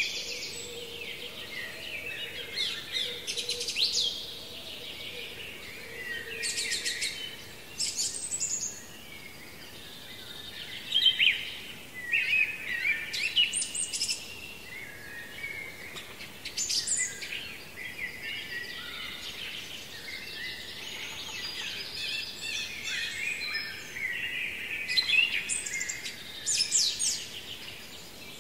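Songbirds singing in chorus: overlapping quick phrases and chirps, with louder bursts of song every few seconds over a steady background of twittering.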